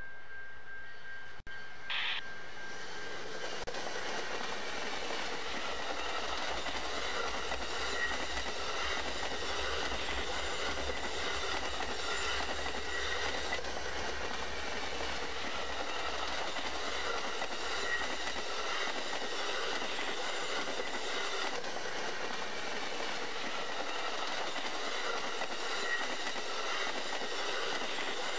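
Amtrak train of bilevel passenger cars rolling past a grade crossing: a steady rush of wheel and car noise with wheels clicking over the rail joints. A grade-crossing bell ringing at the start stops about two seconds in.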